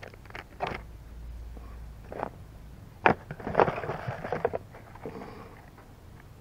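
Plastic lure packaging and a cardboard box being handled: scattered light clicks, a sharp knock about three seconds in, then a second or so of crinkling and rattling.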